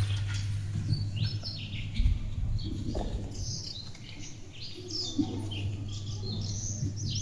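Small birds chirping, a dense chatter of short repeated calls, over a steady low hum.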